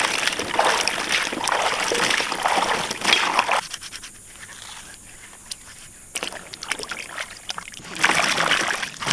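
Water sloshing and splashing in irregular bursts, with a quieter spell of a couple of seconds in the middle broken by a few clicks.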